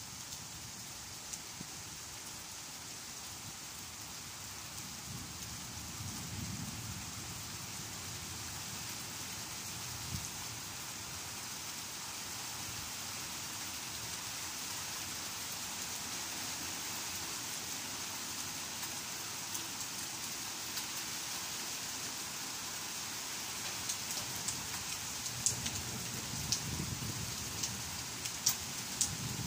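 Steady summer rain falling on tree leaves and a wet path, an even hiss. In the last few seconds, sharp ticks of single drops strike close by.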